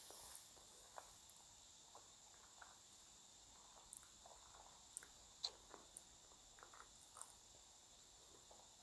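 Near silence: faint steady hiss with a few soft, scattered clicks.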